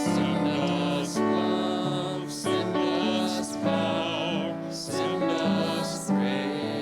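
Slow, gentle music for a sung prayer refrain, with sustained chords and a melody line. A new chord comes in about every second and a quarter.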